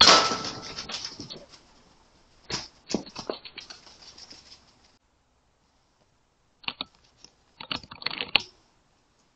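A single shot from an RTI Prophet P3 pre-charged air rifle at the start, dying away over a second or two. It is followed by bursts of scrabbling and clattering on wooden boards, and by more short clatters near the end.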